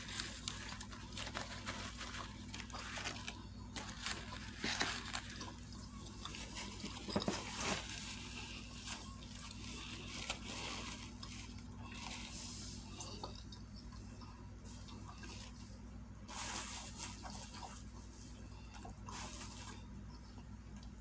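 Close-up chewing and mouth noises of a person eating a leftover Subway sandwich: irregular wet smacking and squishing with occasional crunches, over a faint steady low hum.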